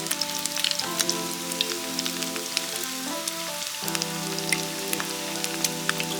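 Background music with held notes that shift every few seconds, over a constant fine crackle and sizzle of food frying in hot oil.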